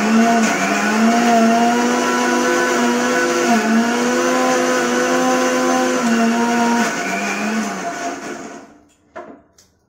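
Electric mixer grinder running, grinding a paste; its motor pitch dips briefly a few times, then it winds down and stops about eight seconds in. A couple of light clicks follow near the end.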